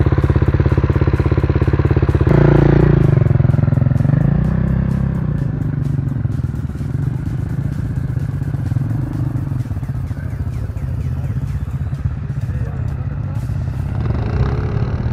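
Race quad (ATV) engine idling with even firing pulses, then a couple of seconds in the engine is revved up and down, and it keeps running unevenly on and off the throttle.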